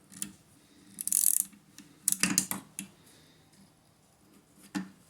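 Metal tool handling on an alternator: a bearing puller being refitted to the shaft, giving a short scrape about a second in, a cluster of clinks around two seconds in and a single clink near the end.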